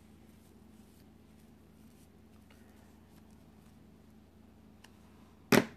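Faint rubbing and light clicks of scissors being wiped clean, then one sharp knock near the end.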